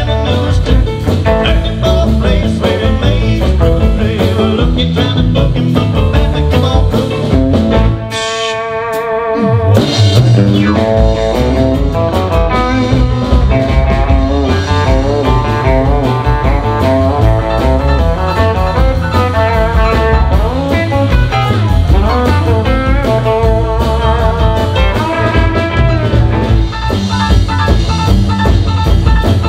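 Live country band playing an instrumental break with electric guitar lead over bass and drums, with no singing. About eight seconds in, the drums and bass stop for a moment while a held, wavering note rings, then the full band comes back in.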